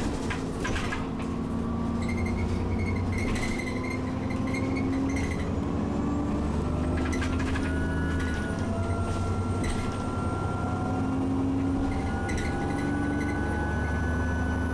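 Alexander Dennis Enviro400 double-decker bus heard from inside while under way: a steady diesel engine drone with a thin high whistle rising slowly through the second half. The whistle comes from a turbocharger the uploader calls very nasty and wheezing. Short rattles and knocks from the interior fittings come through several times.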